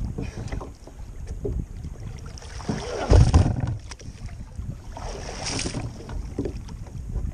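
Kayak moving through choppy sea water, waves slapping and splashing against the hull, with wind gusting on the microphone. The loudest surge comes a little over three seconds in, another about two seconds later.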